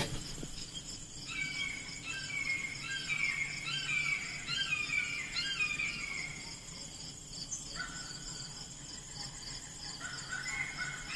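Outdoor wildlife: a bird singing runs of short, falling whistled notes, pausing for a few seconds in the middle, over a steady high buzz of insects.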